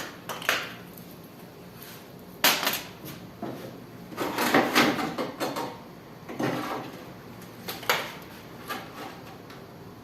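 Scattered knocks and short clattering rattles of metal parts and tools being handled while a window air conditioner is taken apart, with a longer run of clatter about four to five seconds in.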